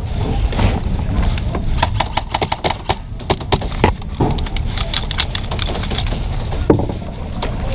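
Airsoft guns firing in rapid strings of sharp cracks, densest about two to four seconds in, with a single louder crack near the end, over a steady low rumble.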